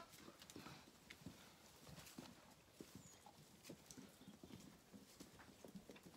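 Faint, scattered taps and rustles of Zwartbles lambs' hooves shifting about on straw bedding.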